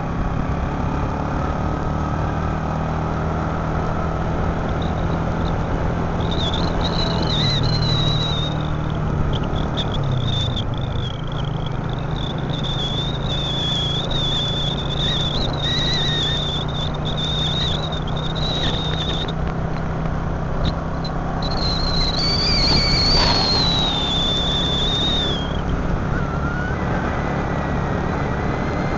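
Motor scooter engine running steadily while riding along a road, with wind and road noise. A high, wavering whistle-like tone comes and goes through the middle.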